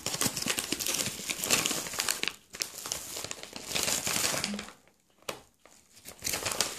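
Crinkling and rustling of parcel packaging being handled and rummaged through, in dense crackly stretches with a brief pause about five seconds in.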